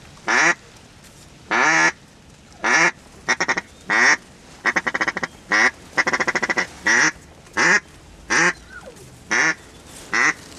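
Duck quacking: a string of loud, short quacks, with two quick runs of rapid chattering quacks about four and a half and six seconds in.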